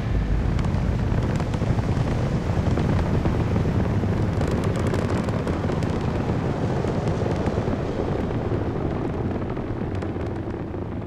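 Space Shuttle launch: the rocket engines and solid rocket boosters give a loud, steady, deep rumble with crackle, easing slightly near the end.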